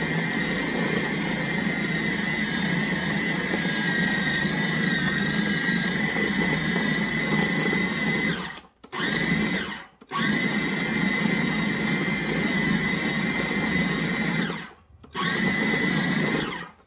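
KitchenAid 13-cup food processor running, its blade mixing pie crust dough while water is poured in. The motor whines steadily for about eight seconds, stops, and gives a short pulse. It then runs for about four more seconds and ends with one more short pulse.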